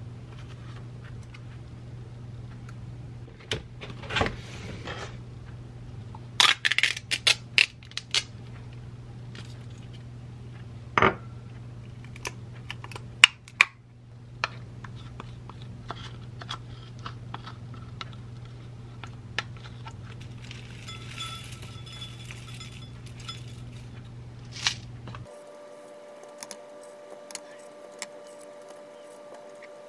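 Kitchen food-preparation sounds: scattered clinks and taps of strawberries, a stainless steel strainer, a yogurt cup and a glass dessert cup being handled, with a cluster of sharp clinks a few seconds in. A steady low hum runs underneath and changes near the end.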